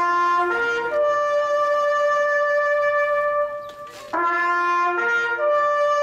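A brass horn playing a slow ceremonial call: three rising notes with the last one held long, then the same three rising notes again from about four seconds in.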